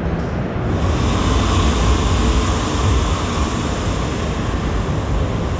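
Steady rushing noise with a deep rumble underneath, loud and unbroken, growing slightly brighter in the middle.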